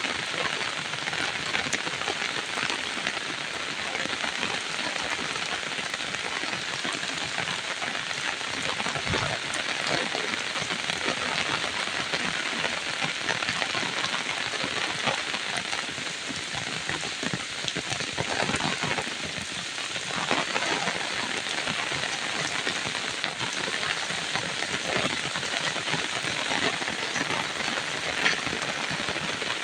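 Steady rain falling: a dense, even hiss of many small drop impacts.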